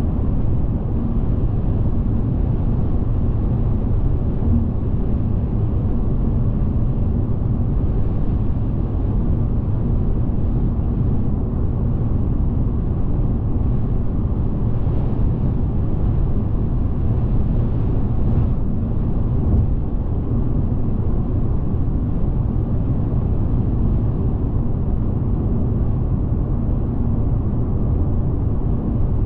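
A car driving at motorway speed: a steady low rumble of tyre and engine noise that holds even throughout.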